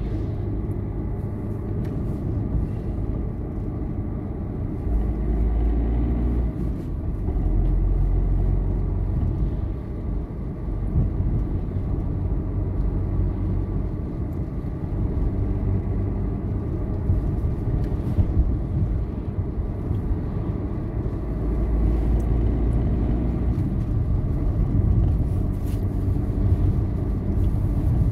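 Car driving along a road, heard from inside the cabin: a steady low rumble of engine and tyres, swelling louder for a couple of seconds at a time.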